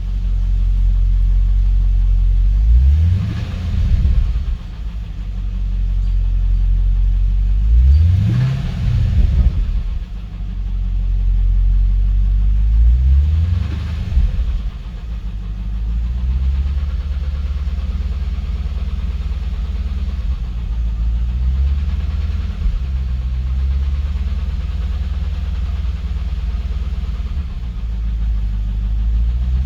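2012 Cadillac CTS-V's supercharged 6.2-litre V8 revved three times in quick blips, then idling steadily for the second half. The owner is investigating a ticking/knocking noise from this engine.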